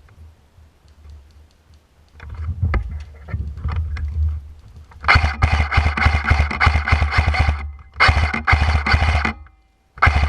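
Airsoft gun firing full-auto in rapid bursts: a long burst of about two and a half seconds starting about halfway in, a second shorter burst, and a brief one at the end, with scattered clicks and handling rumble before the firing.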